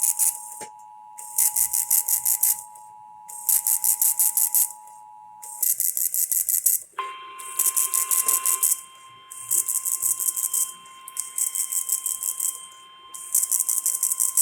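Emergency Alert System two-tone attention signal, two steady tones sounding together, which stops about five and a half seconds in. After a short gap, the single steady NOAA Weather Radio alert tone starts about seven seconds in and holds. Throughout, short bursts of rapid high-pitched rattling ticks repeat about every two seconds.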